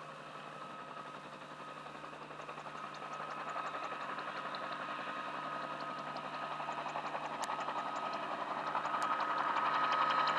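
Helicopter engine and rotor growing steadily louder as it approaches, with a steady whine over a fast, even rotor beat.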